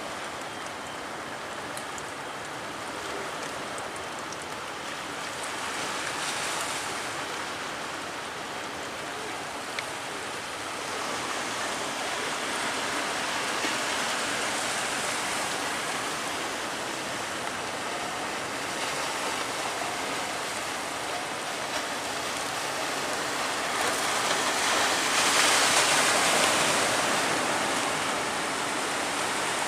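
Big waves breaking and rushing water: a steady rush of surf that swells to its loudest about three-quarters of the way through.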